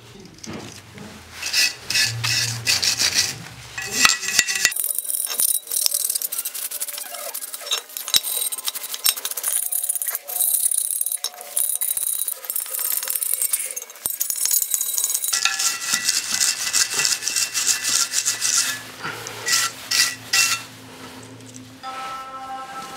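A hand wire brush scrubbing rust off a metal pipe-vise part in quick, irregular, scratchy strokes.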